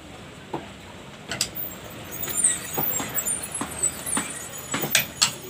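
A series of sharp knocks and clicks at irregular intervals, about one a second and bunching toward the end, over a steady background hum.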